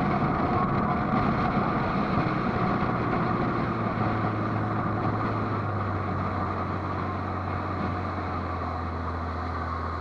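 Speedboat engine running under a rush of wind and water noise; about halfway through, the rush eases and the engine settles into a steady low drone.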